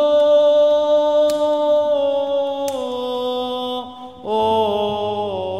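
A single voice chanting in Byzantine style, drawing out the closing words of the Gospel reading in long held notes that step down in pitch. It breaks off for a moment about four seconds in, then starts a new phrase.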